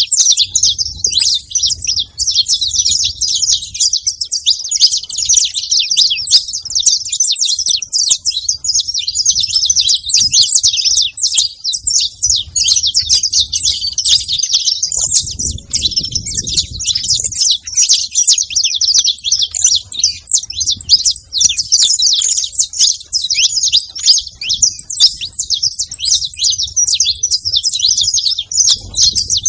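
A flock of saffron finches chirping all together, many quick calls overlapping into a dense, unbroken chatter.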